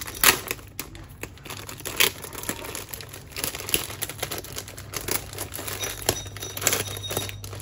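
Thin clear plastic polybag crinkling and crackling as hands pull it open, in irregular sharp crackles, the loudest about a third of a second in, at about two seconds and near the end. A steady low hum runs underneath.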